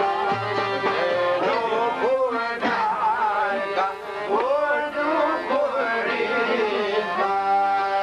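Albanian folk music: long-necked çifteli lutes plucked in a steady rhythm under a man's voice singing. The voice holds a wavering note, moves into ornamented runs between about one and six seconds in, and returns to a held note near the end.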